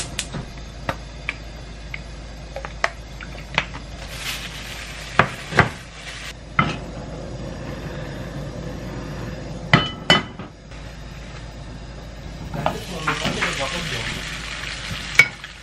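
Frying pan and metal utensils knocking and clinking several times over a gas stove. Near the end, food starts sizzling in the hot pan and is stirred with a spatula.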